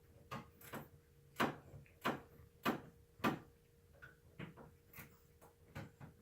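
A series of sharp clicks and taps, roughly one every half second at first, then fainter and more irregular, over a faint steady hum.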